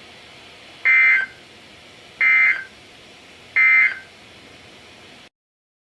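NOAA Weather Radio SAME end-of-message data bursts: three short, identical buzzy digital bursts about a second and a half apart, over low radio hiss, marking the end of the tornado warning broadcast. The audio cuts off abruptly near the end.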